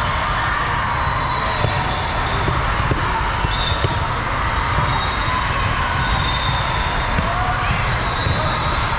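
Volleyball play in a large tournament hall: a steady din of crowd and voices, with scattered sharp knocks of balls being struck and bouncing, and now and then a short high squeak.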